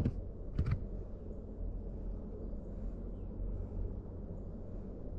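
A sharp knock right at the start and a second, fainter knock about half a second later, then a steady low outdoor rumble.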